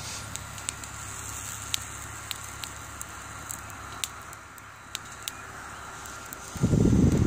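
Wood fire crackling in a BioLite CampStove: sharp pops every second or so over a steady hiss. About six and a half seconds in comes a loud low rumble lasting under a second.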